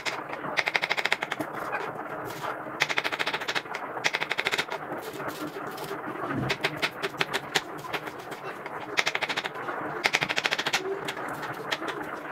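Kitchen knife chopping bell pepper on a wooden cutting board: quick runs of rapid strokes, many a second, broken by short pauses.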